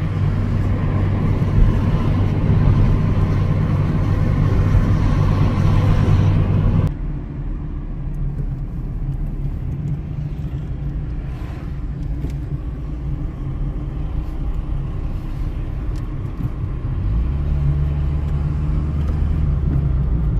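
Steady road and engine noise of a moving car, heard from inside the car, a low drone. About seven seconds in it drops suddenly and becomes quieter and duller, and near the end the low hum changes pitch.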